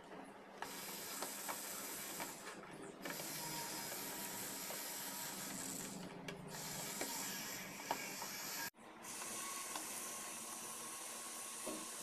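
Small DC motor of a homemade battery-powered screwdriver running with a steady, quiet whir as it turns a screw. It stops briefly a few times.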